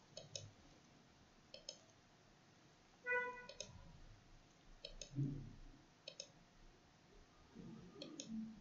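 Computer mouse button clicking, mostly in quick pairs, several times. A short beep sounds about three seconds in, and a low dull thud comes about five seconds in.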